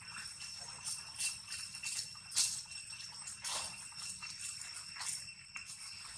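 A steady high-pitched insect drone, with short rustling and crackling sounds from macaques moving and feeding among dry fallen leaves.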